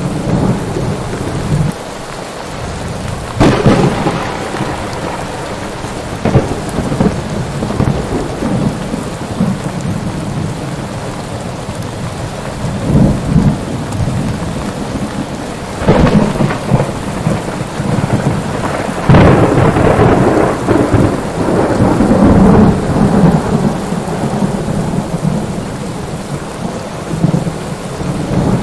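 Thunderstorm: steady heavy rain with rolls of thunder, sharp claps about three seconds in and again near the middle, and the loudest, longest rumble a few seconds later.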